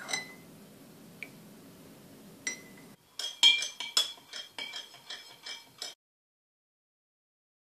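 Metal teaspoon stirring tea in a ceramic mug, tapping its side a few times, faint and spaced out. Then, about three seconds in, a metal spoon stirring in a drinking glass, clinking rapidly, several clinks a second with a bright ring, louder than the mug.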